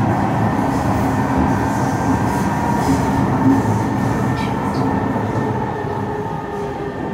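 Kawasaki–Kinki Sharyo C151 metro train running, heard from on board: a steady rumble of wheels on rail with a few steady motor tones, easing a little over the last couple of seconds.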